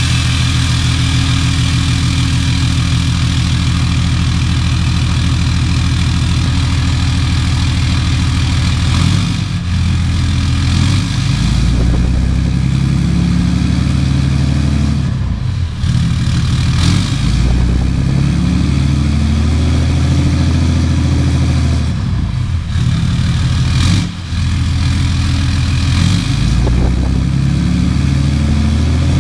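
6.7-litre Cummins inline-six turbo-diesel in a 2014 Ram pickup, heard at the exhaust tip, running with its valve lash freshly set. It idles steadily for about nine seconds, then its engine speed rises and falls a few times.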